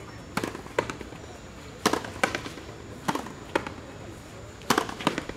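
Frontenis rally: the rubber ball is struck by strung rackets and smacks off the front wall and floor of the court. It makes a string of sharp cracks about every half second to second, the loudest about two seconds in and near the end.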